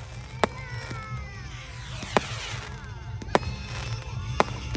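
Fireworks going off: four sharp bangs about a second apart, with high wavering whistles sliding down in pitch between them, over a steady low rumble.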